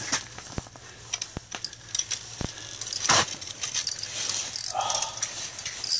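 Ice-fishing reel being worked against a big, hard-pulling lake trout: irregular mechanical clicking and rattling from the reel, with three sharp knocks in the first two and a half seconds.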